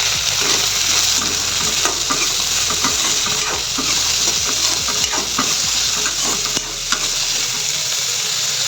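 Chopped squash and potato sizzling loudly in hot oil as they are stir-fried, with a steady hiss and repeated scraping clicks of the stirring utensil against the pan.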